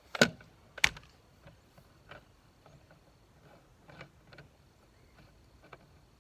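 Metal-on-metal clinks and taps as a golf ball launcher is worked onto an AR-15's threaded muzzle, with the threads not catching. Two sharp clinks come in the first second, then scattered faint ticks.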